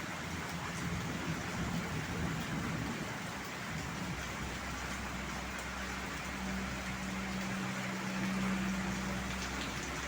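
Heavy rain falling in a steady hiss, with a low steady hum rising under it in the second half.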